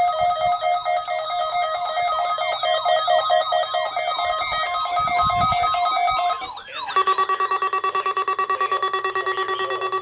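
ZoneGuard weather alert radio sounding its alert: a warbling electronic tone pattern with repeating pitch sweeps, then, after a brief break about 6.5 s in, a rapidly pulsing beep.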